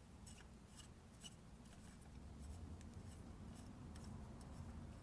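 Faint, scattered small clicks and light scraping from a keypad door lock's parts being handled as a piece is taken off, over a low hum that grows a little louder about halfway through.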